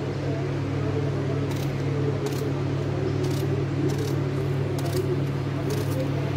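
A kitchen knife slicing pieces off a hand-held raw eggplant into a glass bowl: short crisp cuts at roughly one a second, over a steady low hum.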